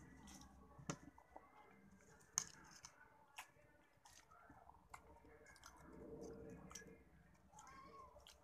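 Quiet eating by hand: fingers picking up rice from a ceramic plate, with a few sharp clicks against the plate, the loudest about two and a half seconds in.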